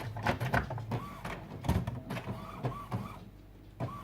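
Epson WorkForce WF-3620 inkjet printer running its check after a new ink cartridge is fitted: a low motor hum with a whine that comes and goes, and a run of mechanical clicks and knocks that eases off about three seconds in.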